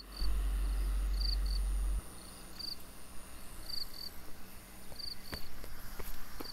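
An insect chirping: short, high double chirps repeating about every second and a quarter, over a steady high-pitched drone. A low rumble, the loudest sound, fills the first two seconds, and a few faint clicks come near the end.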